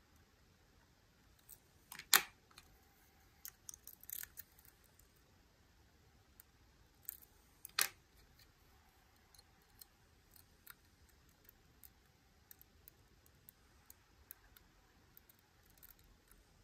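Lock pick and tension tool working inside a Miwa U9 lock cylinder: faint, scattered small metallic clicks and ticks, with a few sharper clicks about two seconds in, around four seconds and near the middle.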